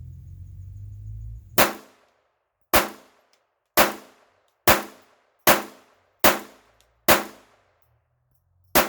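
Beretta 21A .22 LR pistol fired unsuppressed, eight sharp shots emptying the gun. The first seven come roughly a second apart, then a longer pause before the last.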